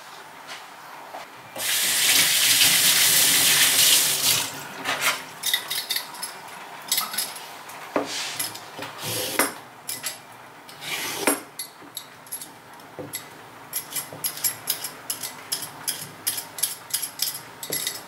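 A kitchen tap runs for about three seconds, then utensils knock and clatter on a wooden board. Near the end a hand peeler scrapes down a carrot in quick strokes, about three a second.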